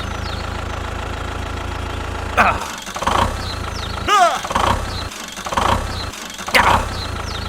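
Engine sound on a model tractor: a steady low drone for the first couple of seconds, which then breaks into uneven chugging pulses about once a second. Short high voice-like squeals sound over it twice.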